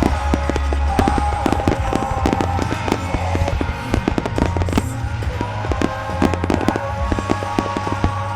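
A rapid barrage of fireworks bursts and crackles in a grand finale, dozens of sharp bangs in quick succession, over loud music with a heavy bass.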